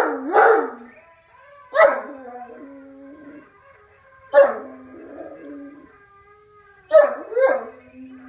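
Irish wolfhound howling: a quick run of woofing howls ends about a second in. Then come three separate calls, each starting with a sharp woof and sliding down into a held low moan. The last call is a double woof.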